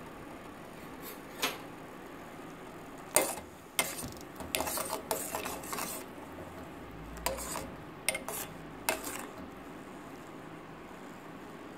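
A spoon stirring sorrel in a pot, knocking and scraping against the pot. There are scattered sharp knocks, a busier stretch of stirring around the middle, then a few more knocks before it stops.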